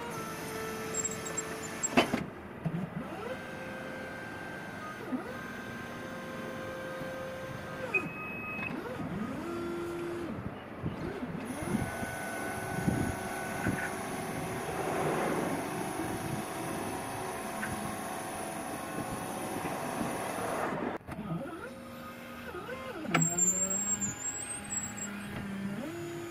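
Electric-hydraulic drive of a JMG MC32S battery-electric mini crane whining as the boom moves. The whine starts and stops every few seconds, changing pitch, with short rising and falling glides between runs.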